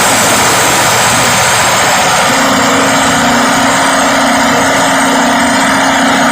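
Cummins 6BTA5.9 turbocharged inline-six diesel engine running, loud and steady, with a steady low drone joining about two seconds in.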